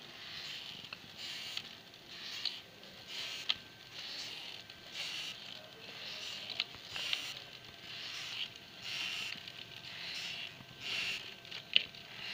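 Hand-cranked metal seviyan press turning as dough is forced through its die into thin vermicelli strands: a rhythmic rasping grind about twice a second, with a few sharp metallic clicks.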